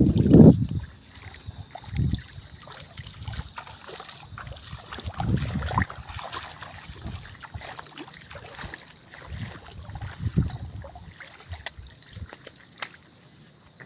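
Footsteps wading through shallow water and mud, with splashing and crackling from water and brushed shoots. Irregular low rumbles of wind and handling on a phone microphone run through it, loudest at the very start.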